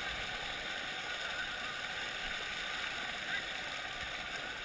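Shallow surf washing over the sand and around a seine net being dragged ashore, a steady rushing hiss, with faint distant voices.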